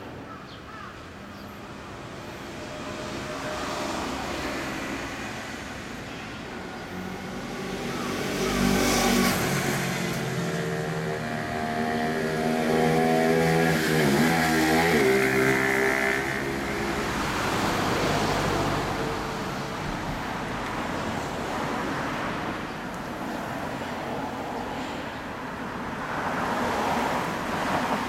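Motor traffic passing by: one vehicle builds up from about eight seconds in, is loudest around the middle, then fades away, with a smaller pass near the end over a steady wash of road noise.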